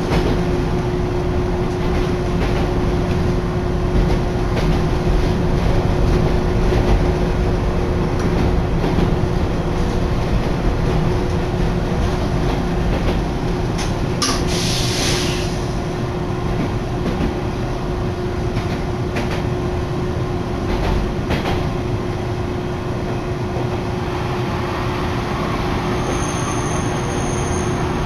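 Hankai Tramway streetcar running, heard from inside the car: a steady rumble of wheels on rail under a constant hum, with scattered clicks and a brief high hiss about halfway through.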